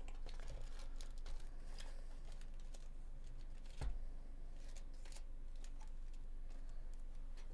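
Faint rustling and light clicks of a cardboard trading-card hobby box being opened and its foil card packs taken out, with one sharper tap about halfway through.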